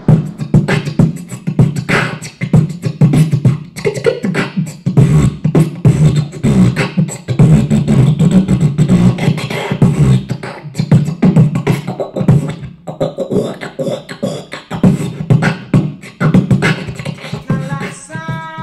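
Beatboxing: loud vocal percussion of mouth-made clicks, pops and low thumps in a quick, uneven rhythm, with a pitched tune starting near the end.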